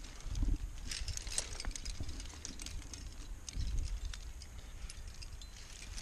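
A climber's movement on granite: scattered light clicks and scuffs of hands, shoes and climbing gear against the rock, with a low gusty rumble of wind on the helmet-mounted camera's microphone.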